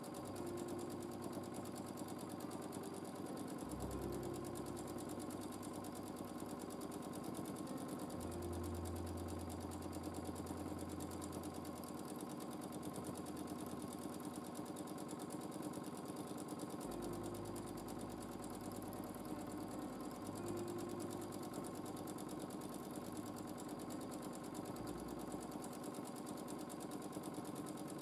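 Domestic sewing machine running steadily at speed during free-motion quilting, the needle stitching in a fast, even rhythm.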